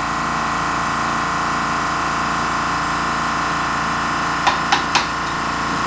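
Air compressor motor running with a steady hum. Three light clicks come close together about four and a half seconds in.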